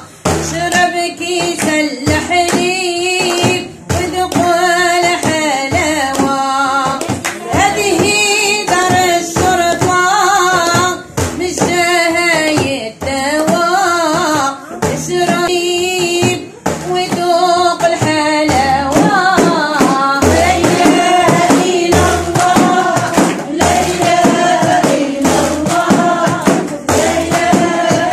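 A woman singing an Islamic devotional chant (dhikr) in phrases, accompanying herself on a hand-held frame drum beaten in a steady rhythm.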